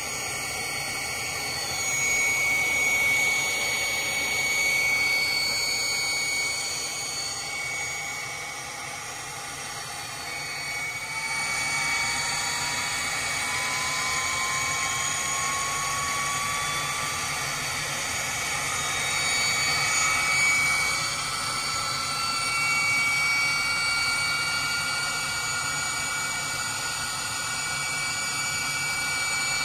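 Morane-Saulnier MS.760 Paris's Turbomeca Marboré turbojets running, heard from the cockpit: a steady high whine, joined from about ten seconds in by a second whine that climbs slowly in pitch as an engine spools up.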